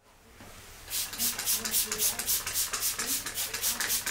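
Trigger spray bottle misting a plant, pumped rapidly: a quick regular train of short hissing sprays, about five a second, starting about a second in.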